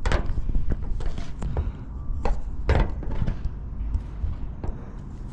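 Hard plastic clicks and knocks from hands working a windshield wiper blade's release clip on its arm: about eight sharp ticks spread unevenly over a low steady rumble.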